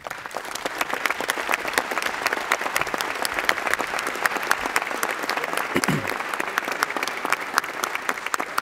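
Applause from many people in the assembly chamber, a dense, steady clatter of hand claps that starts at once and keeps going.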